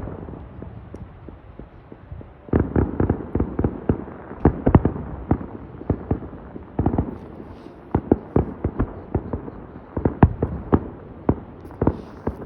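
Fireworks going off: rapid, irregular bangs and pops in clusters, several a second, thickening about two and a half seconds in.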